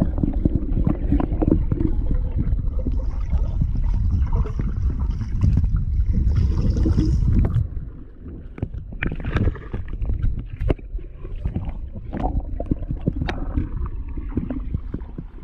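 Water heard through a camera held underwater while a dog dives and swims: a dense, muffled rumbling and gurgling. About eight seconds in, as the camera reaches the surface, it drops to a quieter wash with scattered splashes and clicks.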